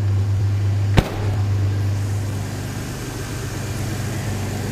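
Chevy S-10 pickup engine idling with a steady low hum, and about a second in a single sharp bang of the truck's door shutting.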